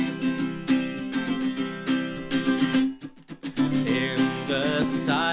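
Acoustic guitar strummed in a steady rhythm between sung lines, with the sound dropping out briefly about three seconds in. A man's singing voice comes back in near the end.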